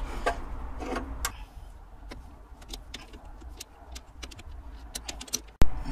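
Open-ended spanner working a fitting loose on the Weber carburettor throttle linkage: a scatter of small, light metallic clicks and ticks as the tool is turned and repositioned, with one sharp, loud click near the end.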